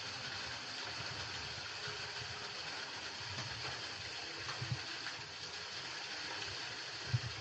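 Steady rush of flowing water from a waterfall, with a few low bumps about five seconds in and near the end.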